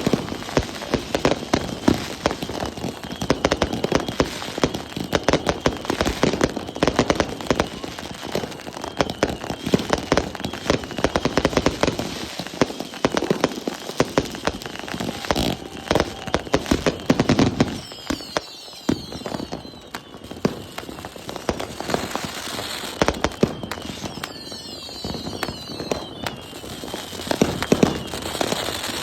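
Backyard consumer fireworks going off: a dense, irregular run of crackling pops and bangs. In the second half, several falling whistles come through.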